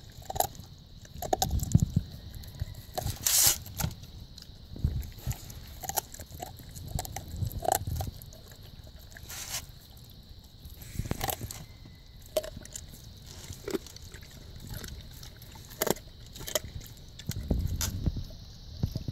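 A dog chewing and crunching raw chicken: irregular wet bites and crunches come one after another, with a few dull low thumps among them.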